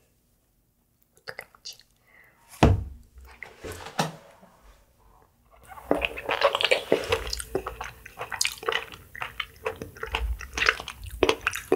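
A few sharp clicks and a single knock, then dense wet slurping, sucking and squishing as a clear strawberry water-drop jelly is eaten straight from its cup with the mouth, close up.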